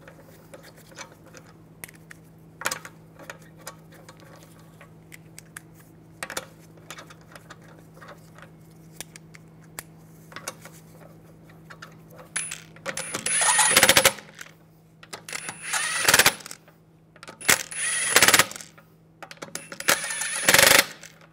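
Metal lug bolts clink and tick lightly against the alloy wheel as they are threaded in by hand. Then, just past halfway, a cordless power tool runs in four short loud bursts with a high whine, snugging the lug bolts down.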